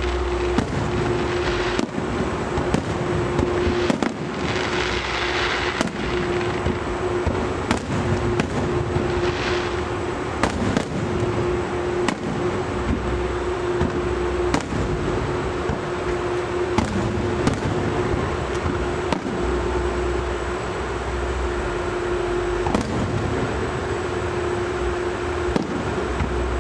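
Fireworks display: a continuous barrage of sharp bangs from bursting aerial shells, with stretches of hissing crackle between them.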